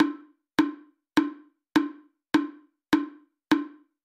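Background music track: a single dry, woodblock-like percussion hit repeating at an even beat, about one every 0.6 seconds, seven hits in all.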